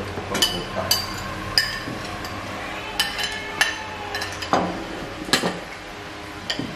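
Metal spoons clinking and scraping against ceramic bowls during a meal: a series of sharp, irregular clinks, each with a short ring.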